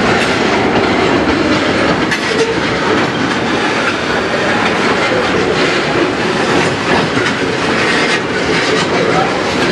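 Freight train of railroad tank cars rolling past, steel wheels clicking and clacking over the rail joints amid a steady rumbling rattle of the cars.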